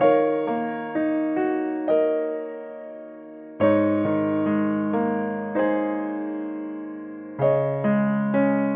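Background music: slow piano chords and melody notes, each struck and left to fade, with fresh chords about a third of the way in and again near the end.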